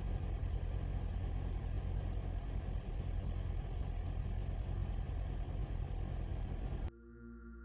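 Steady car cabin noise while driving: low engine and road rumble with a hiss above it. It cuts off abruptly about seven seconds in.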